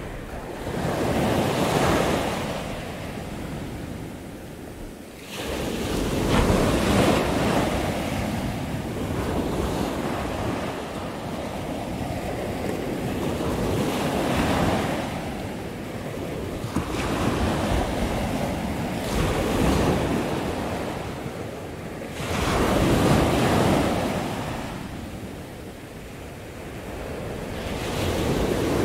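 Ocean surf breaking on a sandy beach, a steady roar that swells and falls back as each wave comes in, every several seconds.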